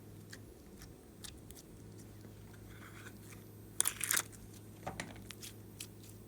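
Glossy slime being squished and worked by hand: scattered sticky clicks and crackling pops, with a louder burst of crackling about four seconds in, over a faint steady hum.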